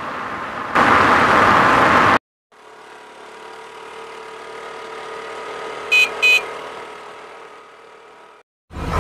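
Vehicle engine sound effects: a loud engine rush that cuts off abruptly about two seconds in, then a quieter steady scooter engine that swells and fades. Two quick horn beeps come about six seconds in.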